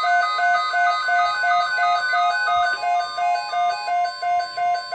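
Synthesized electronic melody: short beeping notes stepping between a few high pitches in a looping pattern, about three notes a second.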